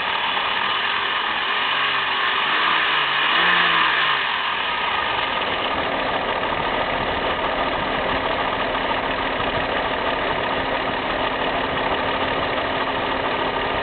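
Volkswagen VR6 narrow-angle V6 engine running steadily, with a brief swell about three seconds in; the owner hears a strange noise in it.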